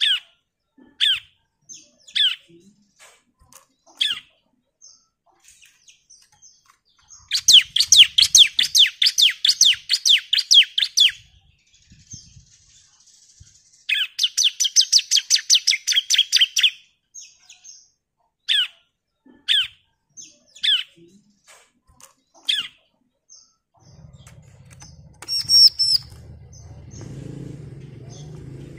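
Bar-winged prinia singing: single sharp, downward-sweeping chirps about once a second, broken twice by rapid trills of about nine notes a second that last three to four seconds each. Near the end a low rustling noise joins, with higher, thinner calls over it.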